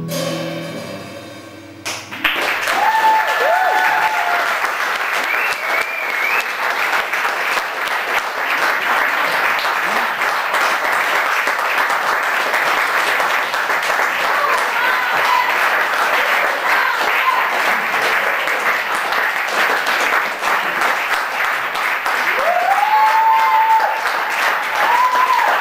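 A theatre audience applauding steadily as the music dies away about two seconds in, with a few drawn-out calls from the crowd over the clapping near the start and again near the end.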